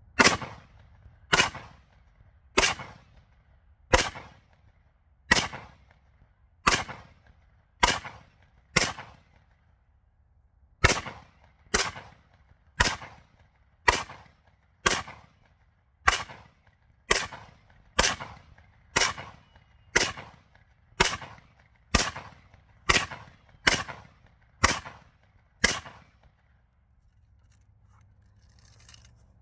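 AR-15 rifle firing .223 in semi-automatic, about two dozen shots at a steady pace of roughly one a second, with one short pause partway through.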